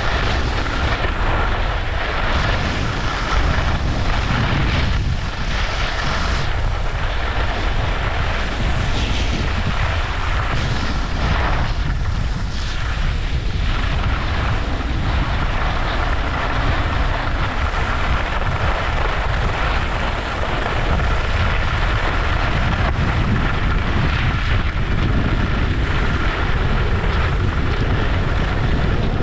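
Wind buffeting the microphone of a skier moving downhill, a steady low rumble, with the hiss and scrape of skis sliding on packed groomed snow swelling now and then as the skis turn.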